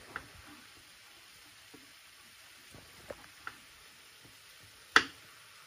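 Kitchen knife cutting a block of butter into small pieces on a chopping board: a few faint taps, then one sharp knock of the blade on the board about five seconds in.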